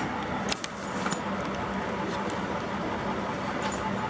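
A few light clicks and knocks from a metal double bass drum pedal being moved and handled, over a steady hum and noise.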